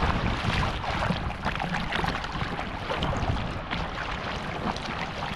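Sea water splashing and sloshing right at the microphone as a swimmer kicks and pushes a bodyboard loaded with a dry bag through choppy water, with wind buffeting the microphone. The splashes come in short irregular bursts over a steady rush.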